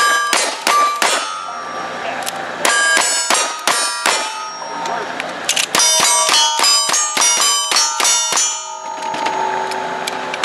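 Quick strings of gunshots, first from a revolver and then a faster string from a lever-action rifle, each hit on the steel plate targets ringing with a clear metallic ding. The ringing fades near the end, when the shooting stops.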